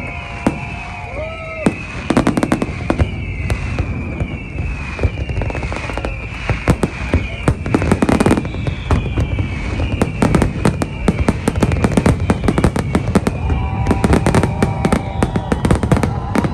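Aerial fireworks display: a rapid run of bangs and crackling bursts, growing denser and more continuous about halfway through, like a finale barrage. A high whistle-like tone repeats throughout, falling in pitch each time.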